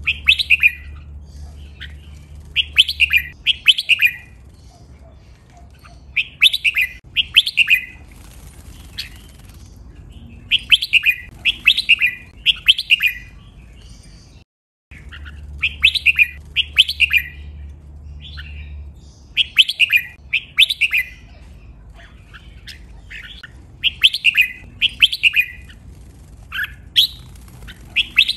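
Red-whiskered bulbul singing, repeating short bright phrases of two or three notes every few seconds. The phrases are doubled, and the song is clear. There is a brief dropout about halfway through.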